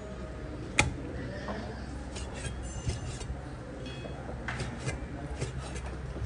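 Steel cleaver knocking and tapping on a plastic cutting board while raw pork stomach is sliced into strips: one sharp knock about a second in, then a run of light taps near the end, over a steady low hum.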